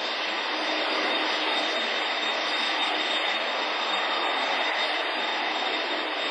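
Martinair Airbus A320-232's two IAE V2527-A5 turbofan engines running at low power as the airliner taxis: a steady jet rush with a thin, high whine held over it.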